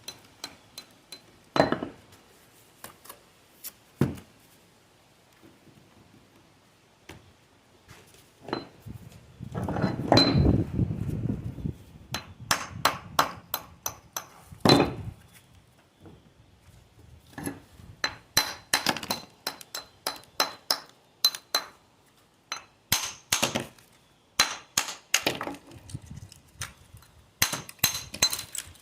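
Rustic stone being handled and set for a chimney veneer: many irregular sharp clinks and knocks of stone on stone and tool on stone, with a louder stretch of scraping and shuffling about ten seconds in.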